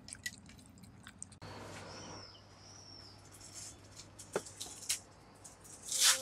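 A cat licking and eating soft food from a bowl, with small wet clicks. Then faint steady room hum, a faint high chirp about two seconds in, and a brief sharp rustle near the end.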